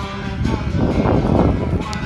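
Music playing, a melody of held notes, over a steady low background rumble.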